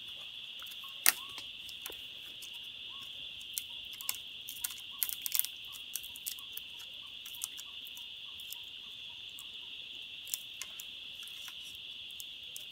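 A steady high-pitched insect chorus, with scattered light clicks and one sharp snap about a second in.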